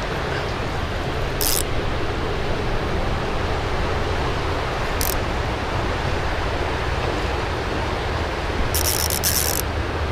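Steady rush of a rain-swollen creek's flowing water. Brief high-pitched buzzes cut in about a second and a half in, again around five seconds, and in a longer run near the end.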